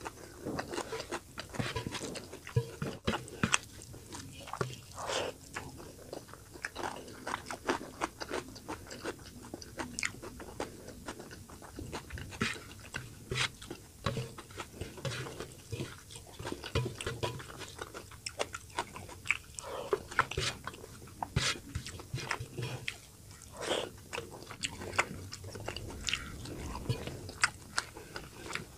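Close-up eating sounds of fish curry and steamed rice: wet chewing and smacking in quick, irregular clicks, along with fingers mixing rice on a steel plate.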